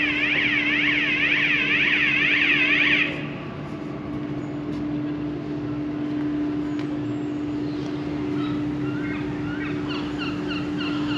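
Lifting road bridge's warning alarm sounding a fast warbling electronic tone, which cuts off about three seconds in, leaving a steady low hum. Faint short chirps come near the end.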